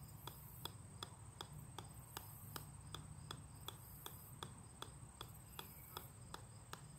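Golf ball bouncing on the steel head of an 8-pound sledgehammer: light, sharp clicks at an even pace, about two and a half a second.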